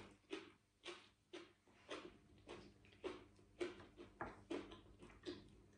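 A person chewing a mouthful of sticky rice and spicy cucumber salad: faint, moist crunches about twice a second.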